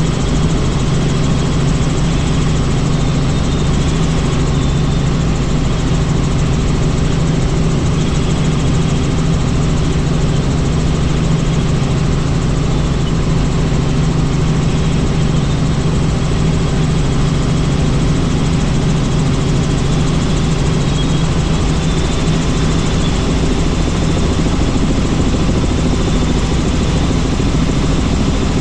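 Helicopter in flight: steady, unchanging engine and rotor drone, loud throughout.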